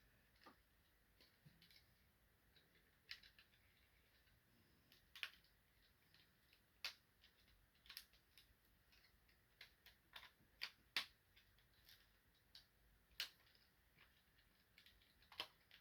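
Hard plastic toy parts of a Transformers combiner figure and its upgrade-kit piece clicking and knocking as the piece is worked into place: a dozen or so faint, sharp clicks at irregular intervals, with a quick cluster of them about ten seconds in. The piece has not yet seated.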